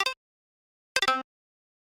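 Electronic notification alert: two short clusters of quick pitched notes about a second apart, the second a little longer.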